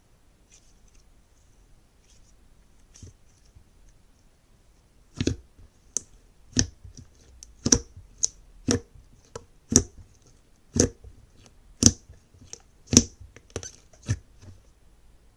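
Slime being handled: faint soft crackling, then from about five seconds in a run of sharp pops or clicks, roughly one a second and some in quick pairs, which stops shortly before the end.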